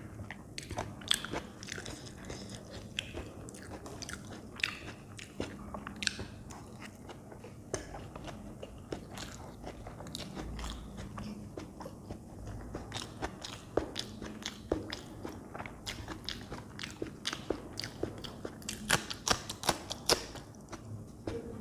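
Close-miked eating sounds from a plate of masala Maggi instant noodles with peas: wet chewing with many sharp, irregular mouth clicks, a quick cluster of them near the end.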